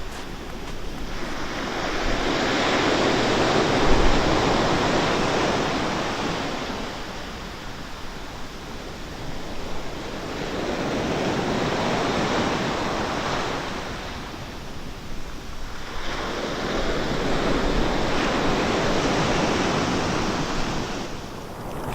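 Rushing, wind-like noise with no motor tone that swells and fades three times, each swell lasting a few seconds: a whoosh sound effect laid over FPV drone flight footage.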